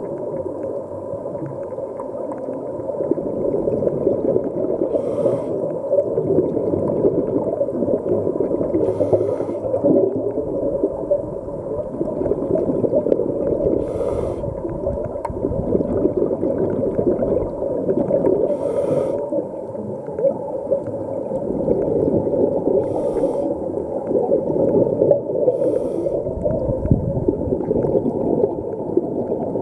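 Muffled underwater noise, a steady rumbling wash heard through an underwater camera, with a scuba regulator's breathing as a short hiss about every four to five seconds.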